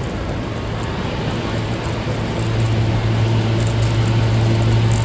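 Busy station-plaza ambience: a steady low vehicle hum that gets louder about halfway through, over the general noise of traffic and people.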